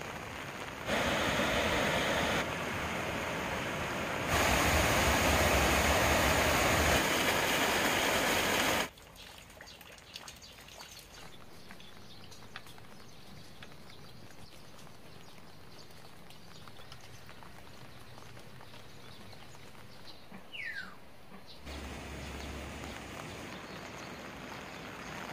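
Steady rain: a dense, loud hiss at first, then after about nine seconds a softer patter with scattered drips. A single short bird chirp about twenty seconds in.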